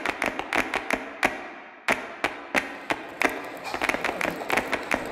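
A quick, irregular run of sharp taps and clicks, each dying away fast, coming closer together toward the end.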